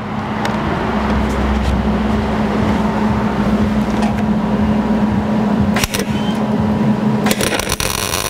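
MIG welder arc crackling as it fills small holes in a steel car frame, strongest near the end, over a steady low hum.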